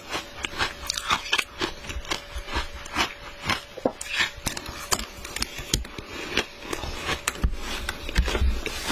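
Shaved ice being chewed, a rapid run of crisp crunches several a second. Near the end, a metal spoon scoops and scrapes through the ice in a plastic tub.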